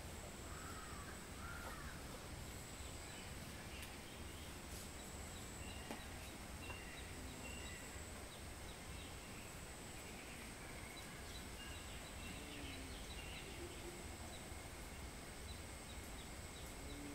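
Faint, steady outdoor background hiss and low hum, with scattered short, high animal calls throughout.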